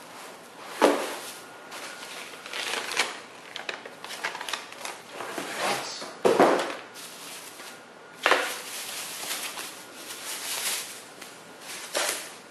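Plastic packing (bubble wrap and a thin plastic bag) rustling and crinkling as it is handled and pulled from a cardboard box, with several sharper crackles, about a second in, around six and eight seconds, and near the end.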